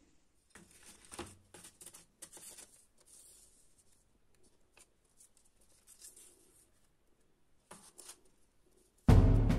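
Paper knife templates rustling and sliding on a sheet of cardboard, with light taps as they are picked up and set down. Loud music with drums starts abruptly near the end.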